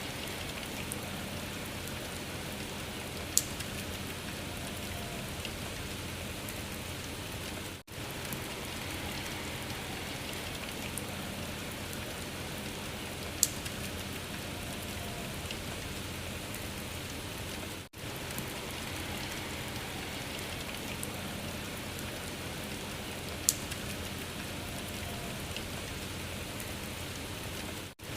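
Steady rain-like patter played as a loop of about ten seconds. The sound drops out for a moment every ten seconds, and one sharp tick comes once in each loop.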